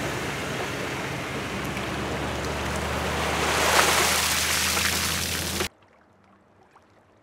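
Toyota Tundra pickup running with a steady low hum while its boat trailer is backed down the ramp into the water; a rush of splashing water builds and peaks about four seconds in. The sound cuts off suddenly near six seconds, leaving near silence.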